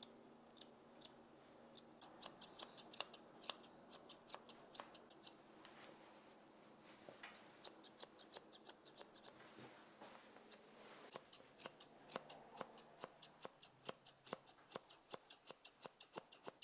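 Grooming scissors snipping dog hair around the face in quick runs of sharp clicks, with a short pause partway through.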